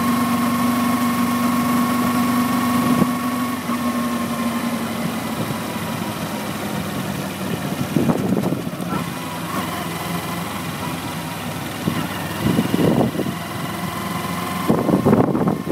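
Kawasaki Ninja 250R's parallel-twin engine running at a steady note that drops away about four seconds in, followed by uneven rumbling bursts later on.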